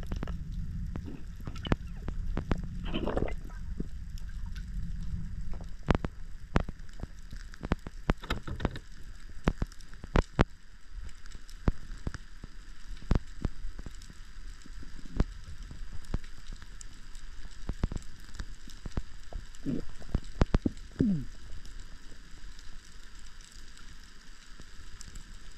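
Underwater ambience picked up by a camera during a dive: irregular sharp clicks and crackles throughout, with a low rumble for the first few seconds.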